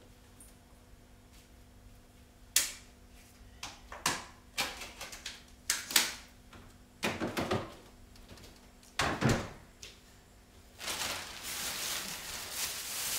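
Groceries being put away in a refrigerator: a string of knocks and clunks as containers are set on the shelves, then plastic grocery bags rustling near the end.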